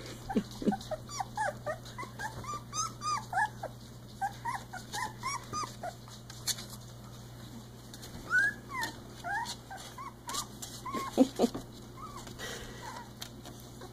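Three-week-old Icelandic Sheepdog puppies whimpering and squeaking over and over, many short high squeals in quick succession as they tussle.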